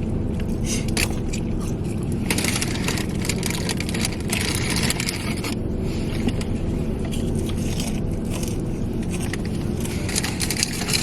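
Irregular crunching and rustling from eating fried fast food and handling its paper packaging, over a steady low engine rumble.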